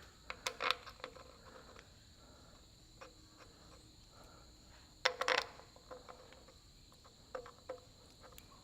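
Light metal clicks and knocks of bolts and tools being handled on a tractor engine's timing-cover housing: a few near the start, a louder cluster about five seconds in and two more near the end. A steady high insect drone runs under them.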